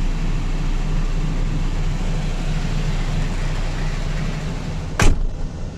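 Steady whoosh of the truck cab's air-conditioning blower over the low hum of the MAN TGS diesel engine idling. A sharp click about five seconds in, after which the sound is quieter.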